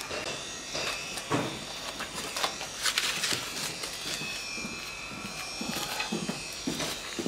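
Cardboard and paper rustling and crinkling as they are handled, with light scrapes and knocks in the ash of a forge hearth.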